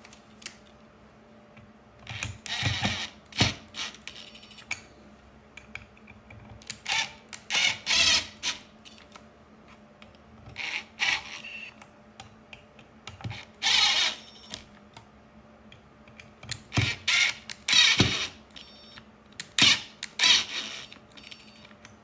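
A screwdriver tightening the screws on the metal lid of a KS0-Pro crypto miner. It comes in about six short bursts of scraping and clicking, with a sharp knock about three seconds in and another near the end.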